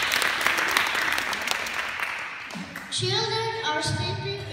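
Audience applauding, dying away about two and a half seconds in; then a child starts singing, holding long notes, about three seconds in.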